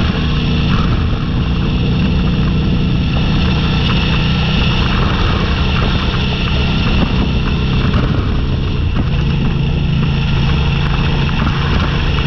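Motorcycle engine running at a steady cruise under a constant rushing noise; the engine note shifts slightly a few times.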